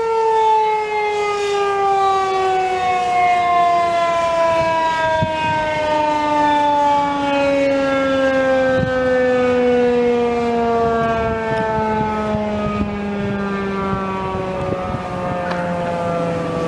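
Federal Signal 2001-SRN rotating outdoor warning siren winding down after its 30-second alert. Its wail falls steadily and slowly in pitch as the rotor coasts down, sounding healthy with the chopper motor working.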